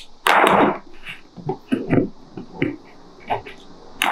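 Metal bar clamps being loosened and pulled off a glued wooden rail: a loud scraping rattle near the start, then several separate clacks and clicks as the clamps are handled and set down on the bench.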